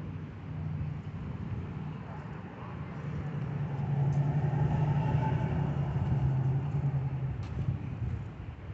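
Motor vehicle engine hum with a steady low drone. It grows louder about three seconds in and eases off near the end.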